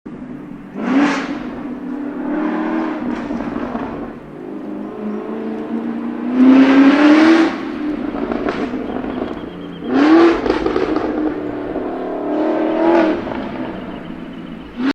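Supercar engine being revved in a series of about five blips, each pitch rise falling back to a lower running note; the longest and loudest rev comes about halfway through.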